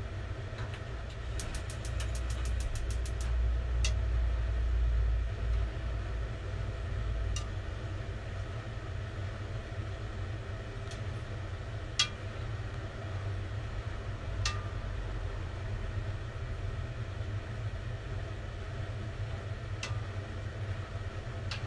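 Gas stove's igniter clicking rapidly, about six clicks a second for a couple of seconds, as a burner is lit under the pot, followed by a low rumble that swells for a few seconds. A steady low hum runs underneath, with a few single sharp clicks later on.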